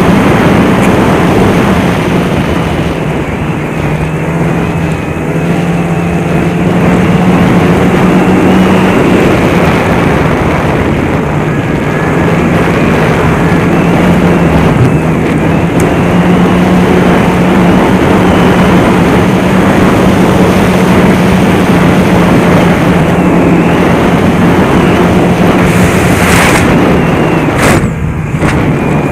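Snowmobile engine running steadily at trail-cruising speed, a constant engine note under a wide rushing noise, with a brief dip in the sound near the end.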